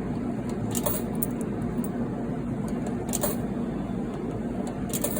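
A few short clicks and clacks from a coin-operated card vending machine being worked, over a steady background hum.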